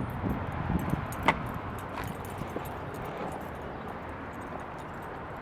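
Steady outdoor background noise with scattered small clicks and taps, one sharper click about a second in.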